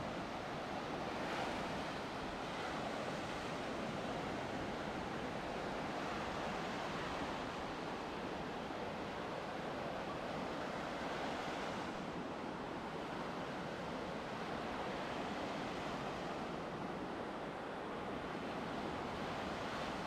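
Ocean surf washing onto the beach: a steady rush of breaking waves that swells a little louder now and then.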